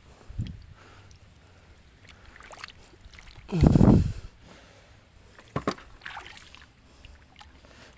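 Splashing in shallow water: a small splash near the start and one loud, heavy splash about three and a half seconds in, with a few short knocks after it.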